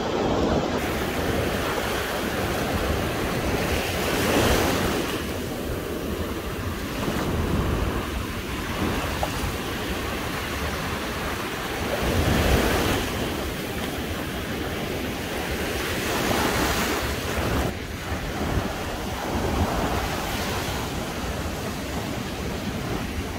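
Sea waves washing onto a beach, the surf swelling and fading every few seconds, with wind blowing across the microphone.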